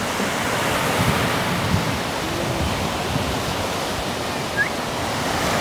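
Baltic Sea surf breaking and washing up a sandy beach: a steady rushing wash of waves.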